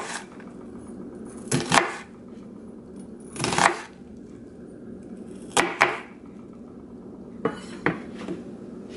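Chef's knife slicing through an onion onto a wooden cutting board: slow, separate cuts about every two seconds, each ending in a knock of the blade on the board, some as a quick double knock.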